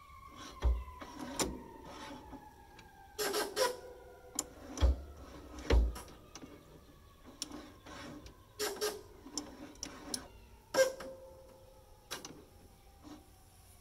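Irregular metallic clicks and clunks from the jet-pump nozzle's trim linkage as a cable-driven trim handle tilts the Sea-Doo Spark steering nozzle up and down. A few of the knocks carry a dull thump, and some ring briefly like struck metal.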